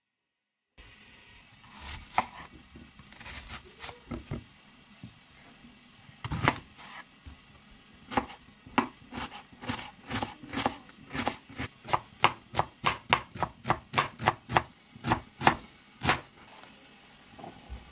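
Small kitchen knife slicing a peeled onion into strips on a plastic cutting board, each cut knocking on the board. A few scattered cuts at first, then a steady run of about three cuts a second that stops shortly before the end.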